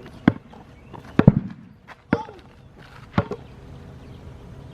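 A basketball bouncing on hard ground: five sharp thumps about a second apart, two of them close together just over a second in.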